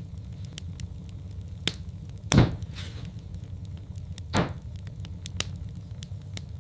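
Wood fire crackling in a fireplace: scattered small snaps over a steady low rumble, with two louder pops a little over two seconds in and again about two seconds later.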